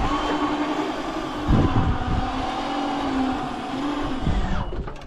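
A motor running with a steady hum, and wind rumbling on the microphone; the hum fades away near the end.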